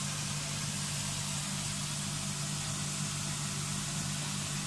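Breaded chicken pieces deep-frying in a pan of hot oil, sizzling steadily, over a steady low mechanical hum.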